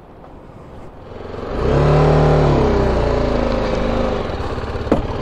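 BMW G 310 GS single-cylinder motorcycle engine accelerating as the bike pulls away, coming in about a second and a half in, its pitch rising and then falling, then running steadily. A single sharp click near the end.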